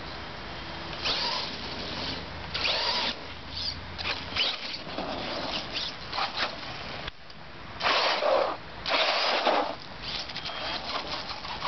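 Radio-controlled truck's motor whirring in several short bursts of acceleration, likely as it tries to pop a wheelie, with the loudest two bursts close together near the end.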